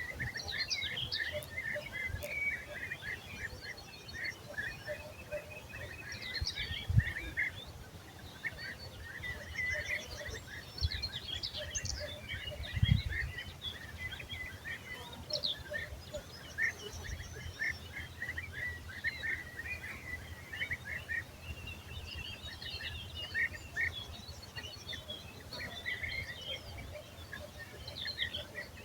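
Several small birds chirping and trilling over a low rumble, with two brief low thumps, about 7 and 13 seconds in.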